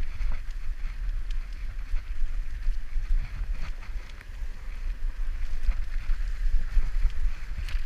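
A bicycle rolling along a rough dirt path, its tyres giving a steady noise and the frame and parts giving off scattered small rattles and clicks. Underneath is a constant low rumble of wind and vibration on the microphone.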